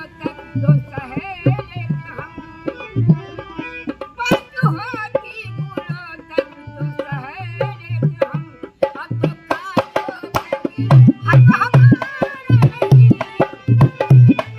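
Folk music: a harmonium's steady reed chords under a woman's singing voice, kept in rhythm by a hand-played dholak barrel drum. The drumming grows louder and heavier about three-quarters of the way through.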